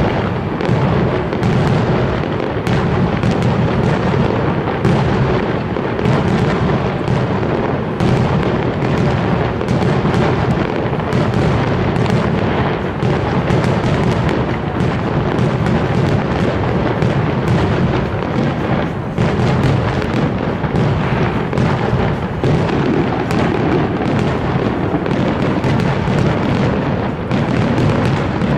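Aerial fireworks in a dense, unbroken barrage of many overlapping bangs and crackles.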